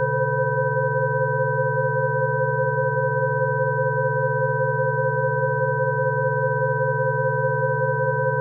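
Several steady electronic sine tones sounding together without change, one low and several higher: a Rife frequency track for coughing.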